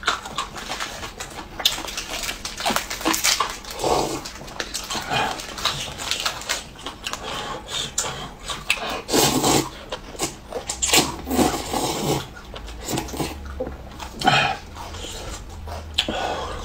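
Eating noises: noodles slurped from a cup of hot and sour noodles with chopsticks, with crunchy chewing of corn crackers, in short irregular bursts and clicks.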